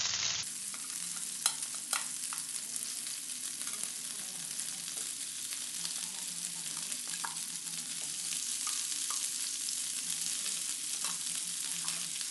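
Pressure-cooked mutton pieces sizzling in hot melted butter in a frying pan as they are laid in, a steady hiss of frying. A couple of sharp clicks come about one and a half and two seconds in.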